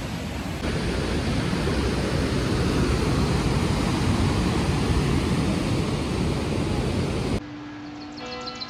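Steady rush of a mountain torrent pouring through a narrow rocky gorge. Near the end it cuts off abruptly, giving way to church bells ringing and birds chirping.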